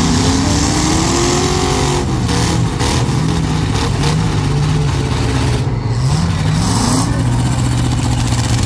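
Demolition derby cars' engines running loud and revving up and down as they manoeuvre and ram each other, with a few short knocks along the way.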